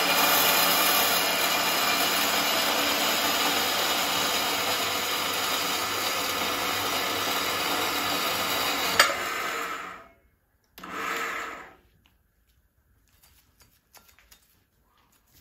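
Epple BS 125 GS metal band saw running and cutting a steel tube dry, without cutting oil: a steady whine with a rasp of the blade. About nine seconds in there is a sharp click, and the saw stops within a second. A short burst of noise follows, then a few light clicks.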